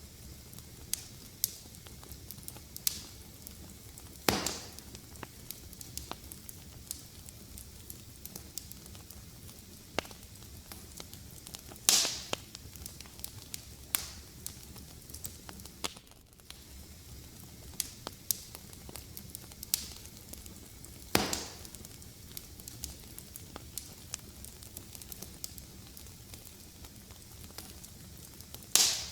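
Wood fire crackling in a fireplace: a soft steady hiss with frequent small ticks and four louder pops spread through.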